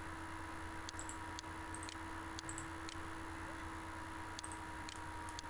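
Computer mouse clicking: a scattered series of faint, irregular clicks over a steady low hum.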